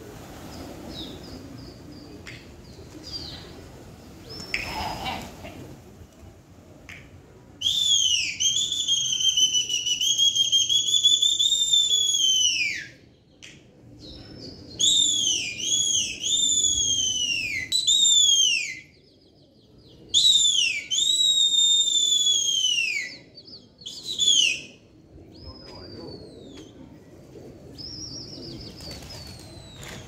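Loud, shrill human whistling to a flock of flying pigeons: three long whistles, each rising, wavering and sliding down, then a short one, starting about a quarter of the way in.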